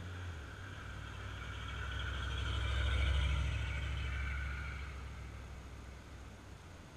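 A car driving past on the road: its engine rumble and tyre noise build to a peak about three seconds in, then fade away.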